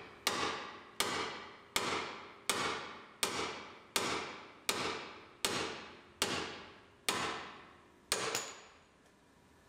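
Hammer blows knocking an old ball joint out of a steel steering knuckle, about one every three-quarters of a second, each one ringing out. The last two come in quick succession about eight seconds in, then the hammering stops.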